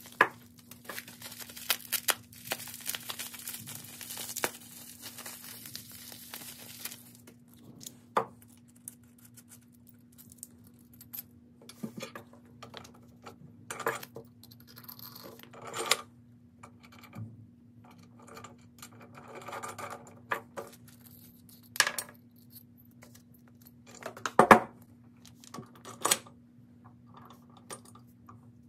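Hardware being unpacked and handled: packaging crinkling and tearing for about the first seven seconds, then scattered metal clinks and knocks of parts being set down, the loudest about 24 seconds in. A faint steady hum runs underneath.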